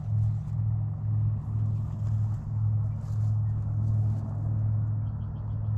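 A steady low mechanical hum, like a motor or engine running without let-up, with a few faint light ticks near the end.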